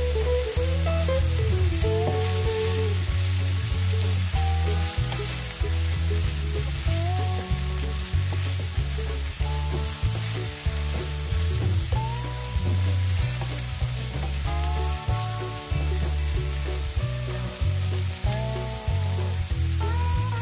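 Diced red onion and red pepper sizzling in a frying pan, stirred with a wooden spatula, under background music with a steady bass line.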